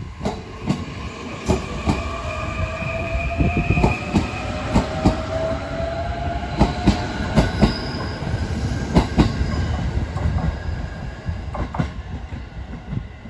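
A Joban Line E531-series electric train pulling away from the platform, its motor whine rising slowly in pitch as it picks up speed. The wheels click repeatedly over the rail joints, and the sound fades near the end as the train moves off.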